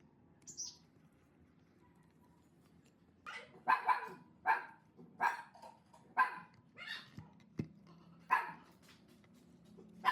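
A dog barking repeatedly, a string of about eight barks roughly one every half to one second, starting about three seconds in.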